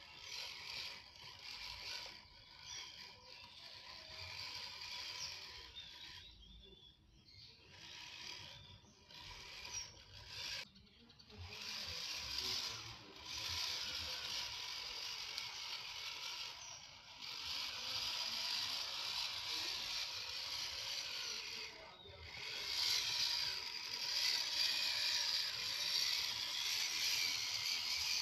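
1/10-scale RC rock crawler's electric motor and gear drivetrain whirring as it crawls over dirt and leaves. It stops briefly about four times and gets louder in the second half.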